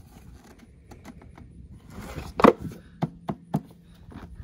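Hard plastic knocks and clicks as a PVC pipe and an Intex pool filter's plastic housing are handled and fitted together. There are a few light ticks at first, the loudest knock about two and a half seconds in, then three sharp clicks in quick succession.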